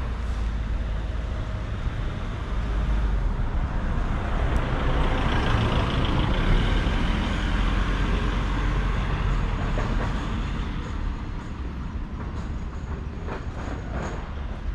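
City street traffic with a large vehicle passing. Its engine rumble and road noise swell to a peak near the middle and fade away again.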